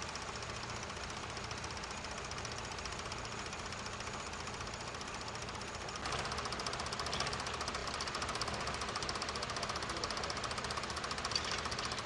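Vintage tractor engines running steadily under load while ploughing, with a rapid even firing beat. About halfway through, the sound changes abruptly to a closer, louder engine.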